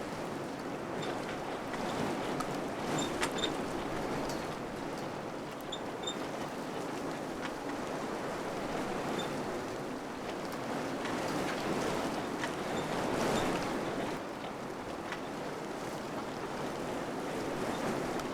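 Wind blowing steadily in gusts, a rushing noise that swells and eases, strongest about two seconds in and again past the middle.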